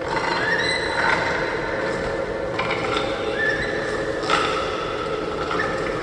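Horror sound-effect soundscape of a torture chamber: metallic clanks and knocks with short squeals over a steady low drone.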